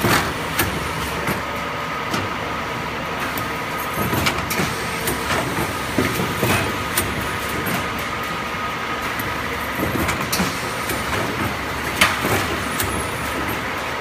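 Automatic paper-cup placing and cake-batter depositing machine running: a steady mechanical hum with a faint high tone, broken by irregular clicks and clacks from its air-driven parts, with one louder knock about 12 seconds in.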